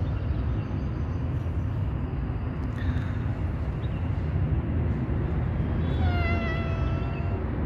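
Black-and-white tuxedo mother cat giving one long meow about six seconds in, over a steady low background rumble.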